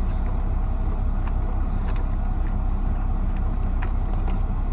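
Steady low rumble of a semi truck's idling diesel engine heard inside the cab, with a few faint small clicks of the CB radio's connections being handled.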